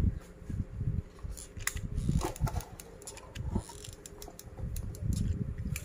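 Irregular light clicks and taps from handling plastic drinking straws and a hot glue gun on a tabletop while gluing.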